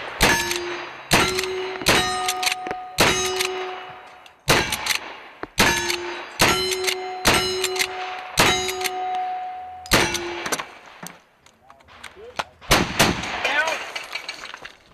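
Uberti 1866 Yellowboy lever-action rifle firing about ten black-powder shots in steady succession, roughly one a second. Each shot is followed by the ringing of a struck steel target.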